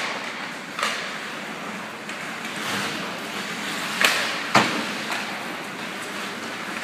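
Ice hockey play: sharp clacks and bangs of sticks and puck, about five in all, the two loudest close together past the middle, over a steady hiss of skates on the ice.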